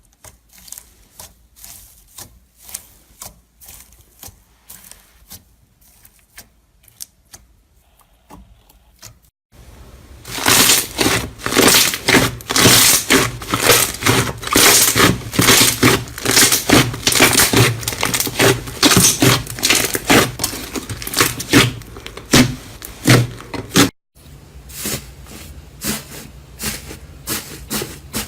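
Slime being squished and pressed by hand, giving rapid runs of small crackling clicks and pops. Fairly quiet at first, then much louder and denser for a long stretch after about a third of the way in, easing again near the end.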